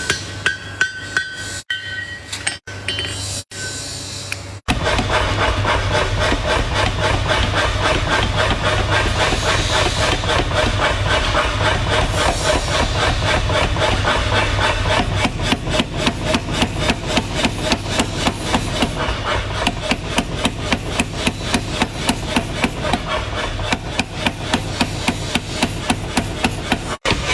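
Hammer strikes on metal at a forge: a few separate blows with short breaks, then about five seconds in a fast, steady run of strikes, several a second, over a low steady hum.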